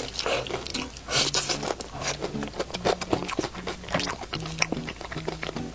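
Crunchy biting and chewing of fried chicken close to the microphone, many quick crackles, over soft background music.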